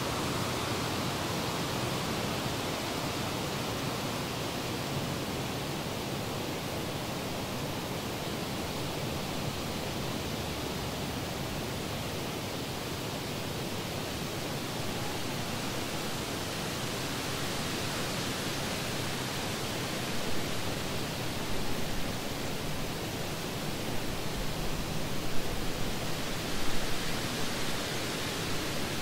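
Steady, even rushing noise with no pitch or rhythm, with a few small bumps in loudness near the end.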